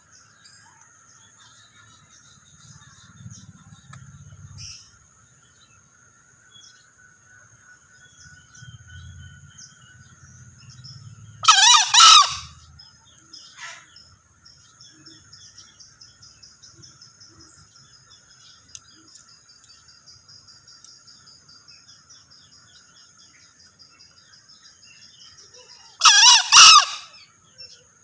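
Male green junglefowl crowing: two short, loud two-part crows, about a dozen seconds in and again near the end.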